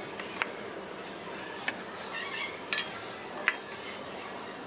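Silicone spatula pressing and smoothing a thick halwa-like sweet mixture into a steel tin, knocking against the metal in a few sharp clicks.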